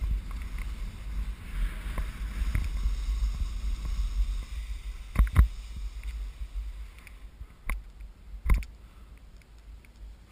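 Skis hissing and swishing through wet, heavy spring slush, with wind rumbling on the microphone and several sharp knocks in the second half; the sliding sound eases off near the end.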